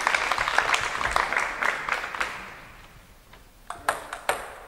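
Audience applause that fades out about two to three seconds in. Near the end come a few sharp, separate knocks of a table tennis ball.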